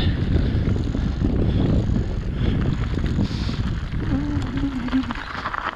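Mountain bike rolling downhill over grass and loose gravel, with wind buffeting the microphone and the tyres and bike clattering on the stones. A short, wavering low hum sounds about four seconds in.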